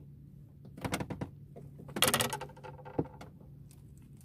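Fishing tackle being handled: a quick run of clicks about a second in, a louder scraping rattle about two seconds in and a single click a second later, over a steady low hum.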